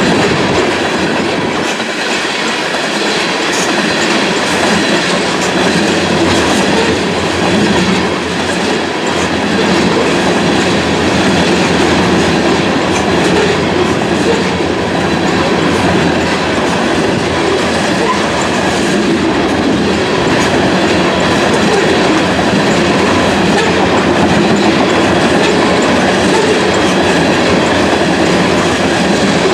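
Freight train of black tank cars rolling past close by: a steady rumble of steel wheels on rail with repeated clicking as the wheels cross rail joints.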